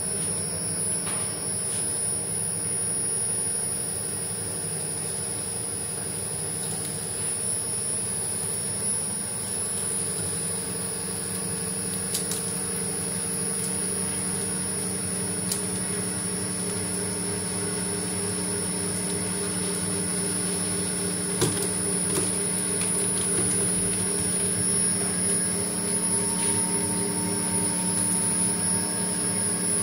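SPU-40 screw oil press running steadily on its 2.2 kW electric motor, pressing sunflower seeds with no nozzle fitted: an even mechanical hum with a few short clicks.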